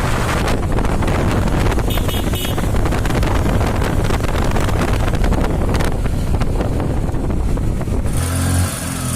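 Bajaj single-cylinder motorcycle engine running under way, with no clutch-assembly rattle now that the clutch plates have been refitted. About eight seconds in, it settles to a steady low hum.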